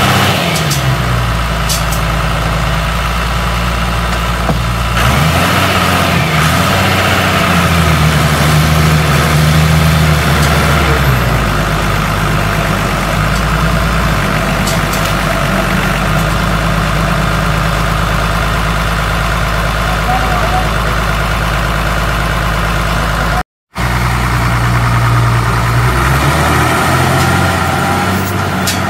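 A John Deere tractor's diesel engine running under load while towing a forage-laden Isuzu truck on a chain; the engine note shifts several times. The sound cuts out for a split second about two-thirds of the way through.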